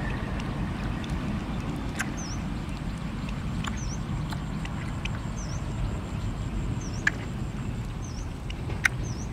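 Outdoor ambience with a steady low rumble, a faint high chirp repeating about once a second, and a few sharp clicks, the loudest two near the end.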